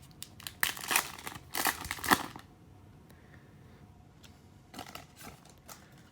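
Trading cards and their pack wrapper being handled, crinkling and rustling in several bursts over the first couple of seconds, then a few faint taps near the end.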